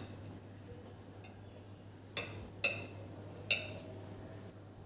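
Metal spoon clinking against a ceramic bowl three times, each strike ringing briefly.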